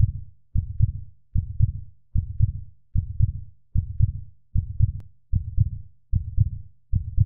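Heartbeat sound effect: a steady run of deep double thumps (lub-dub), about 75 beats a minute.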